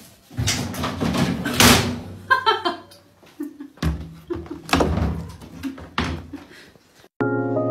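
A door being banged and rattled, a rapid run of knocks and thuds followed by several separate knocks. Music starts near the end.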